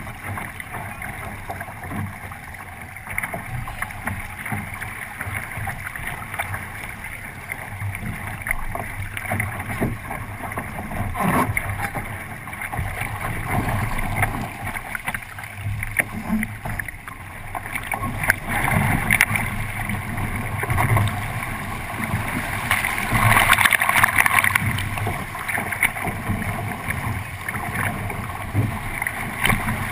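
Water rushing and splashing along the hull of a 29er skiff sailing fast, with wind buffeting the microphone; the rush grows louder about two-thirds of the way through, peaking briefly near the end.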